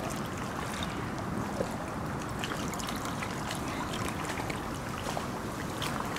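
Lake water lapping and splashing in the shallows as a large carp is handled and lifted out of the water, with small drips and splashes throughout and a low wind rumble on the microphone.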